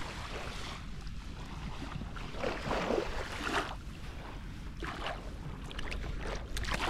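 Beach ambience: wind buffeting the microphone over the wash of small waves on the shore.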